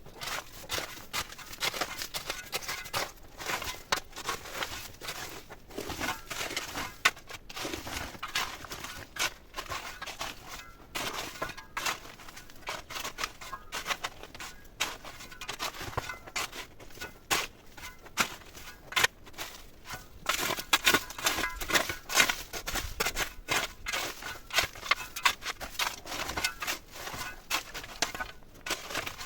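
Dry twigs, branches and leaves crackling, snapping and rustling in dense, irregular clicks as they are handled, heaviest about two-thirds of the way through.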